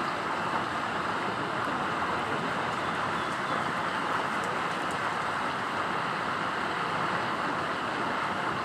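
Steady outdoor background noise, an even hiss with nothing standing out.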